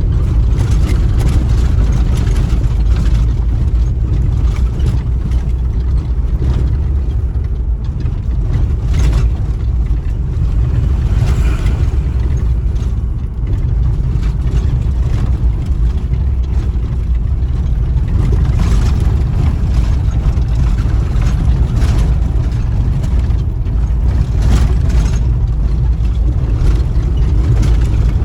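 Steady low rumble of a vehicle travelling on the road: engine and road noise, with scattered brief knocks.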